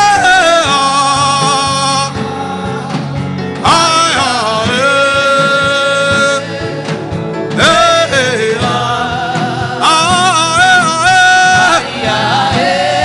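Worship music: a voice sings a series of long, held chant-like phrases, several sliding down into the held note, over a steady instrumental backing.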